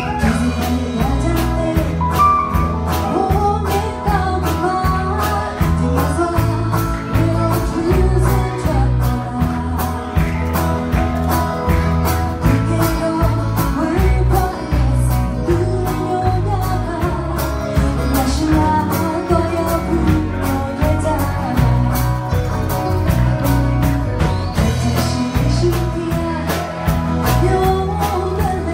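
Live band: a woman singing into a microphone over drums, acoustic guitar and electric guitar, with a steady beat.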